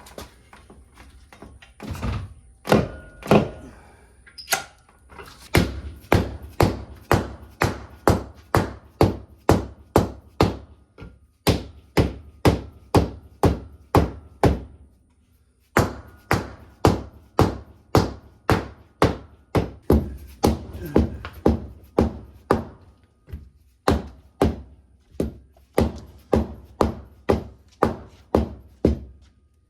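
Hammering: a few irregular knocks, then steady blows at about two to three a second in two long runs, with a short break about halfway through.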